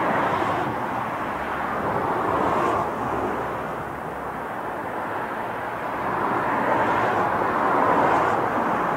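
Steady rushing noise of road traffic, swelling and fading as vehicles pass.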